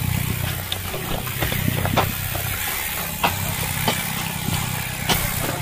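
Mountain bike rolling fast down a dirt singletrack: steady tyre and wind rumble, with sharp clicks and knocks from the chain and frame over bumps about once a second.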